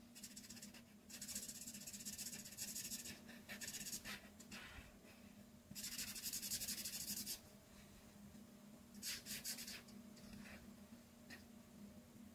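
Art marker tip stroking across paper in a series of scratchy colouring strokes, some short and a few lasting one to two seconds, over a faint steady low hum.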